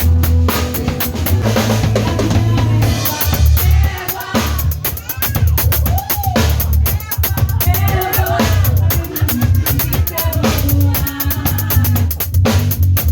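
Drum kit played in a steady beat, with bass drum, snare and rimshots, over band music carrying a sung or played melody.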